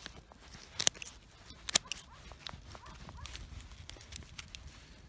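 Pruning shears snipping through thin roots of a young grapevine rootstock: two sharp snips about a second apart, with a few fainter clicks around them.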